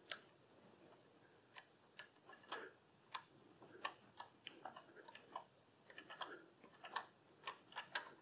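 Faint irregular clicking and crunching from a HeliCoil thread-repair tap cutting new threads in an injector-clamp bolt hole, turned by a ratcheting T-handle tap wrench as the tap bites and follows the hole.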